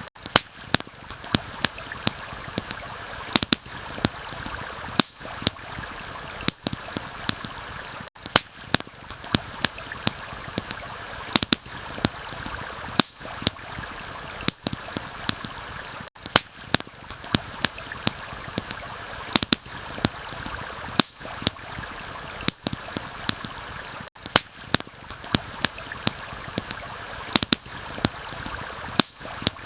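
Campfire crackling with frequent sharp pops over the steady rush of a stream.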